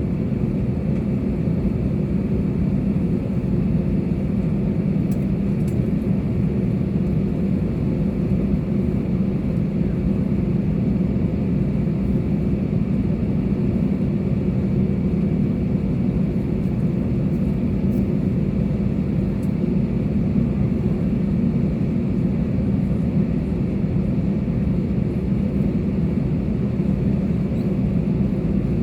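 Steady low drone of an Airbus A320neo's engines and airflow, holding an even level throughout.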